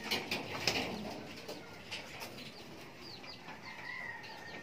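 Caged birds in a pigeon loft: a few sharp clatters in the first second, then a quick run of short, high, falling chirps near the end.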